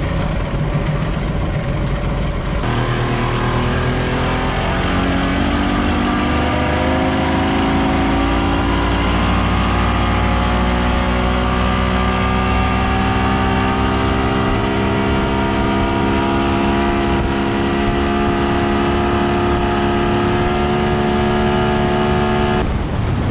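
Evinrude Ocean Pro 150 two-stroke V6 outboard running under throttle, its pitch climbing for several seconds as the boat picks up speed, then holding steady at cruising speed.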